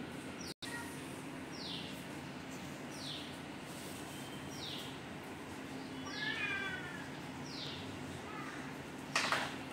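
Domestic cat meowing once about six seconds in, a call that rises and falls, then a short loud hiss near the end, while squaring off with puppies. A high falling chirp repeats about every second and a half in the background.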